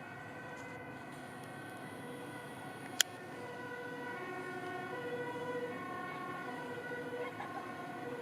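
Emergency-vehicle siren sounding, stepping back and forth between two pitches, over a steady background hum. A single sharp click about three seconds in.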